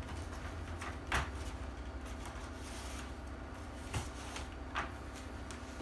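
A replica pulse rifle being handled during disassembly: a few sharp clicks and knocks of its parts, the loudest about a second in and two more later, over a steady low hum.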